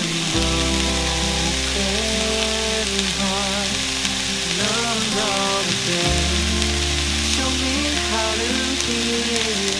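Sliced onions sizzling steadily in a Staub enamelled cast-iron pan, with background music playing over it.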